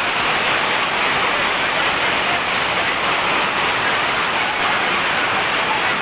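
Waterfall pouring off a high rock cliff into a pool: a loud, steady rush of falling water that does not change.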